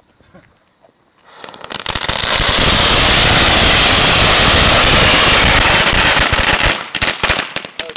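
A pile of dragon egg crackling balls going off: a few pops about a second in build quickly into a dense, continuous crackle that holds for about five seconds, then thins to scattered pops near the end.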